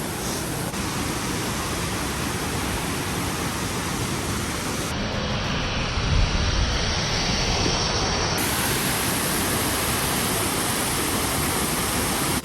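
Steady rush of a fast-flowing mountain river, with a brief deeper surge about six seconds in.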